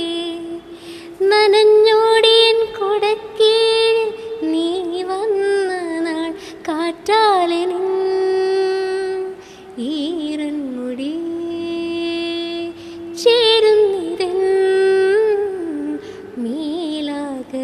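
A woman singing a slow Malayalam film-song melody solo, with long held notes that waver and glide between pitches, broken by short pauses for breath.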